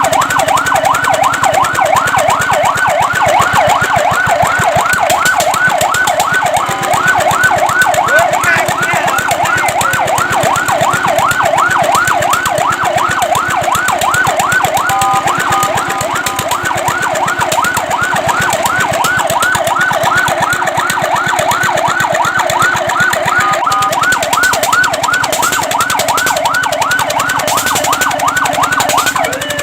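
Fire truck siren in a fast yelp, its pitch sweeping up and down several times a second. Twice it briefly holds a short steady tone, and near the end it slides down in pitch.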